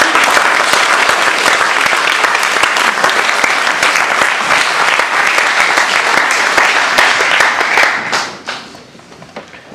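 Audience applauding, many hands clapping steadily, dying away about eight seconds in.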